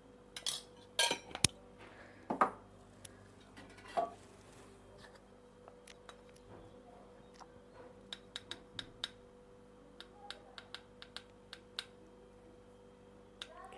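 Steel spoons and small steel spice containers clinking and knocking as they are handled, a few louder knocks in the first few seconds, then a run of light ticks, over a faint steady hum.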